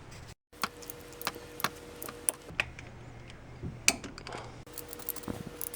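Torque wrench ratcheting as brake caliper bolts are tightened: a string of irregular sharp clicks.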